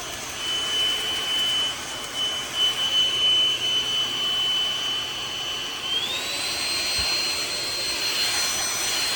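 Cordless stick vacuum running with a high, steady motor whine over a rush of air. About six seconds in the whine glides up in pitch and holds at the higher note.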